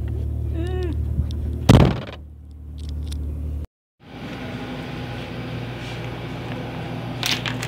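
Car cabin rumble from the engine and tyres on a dirt trail, with small clicks and one loud thump about two seconds in. After a sudden cut, the steady hum and hiss of a convenience store's refrigerators and ventilation, with a short knock near the end.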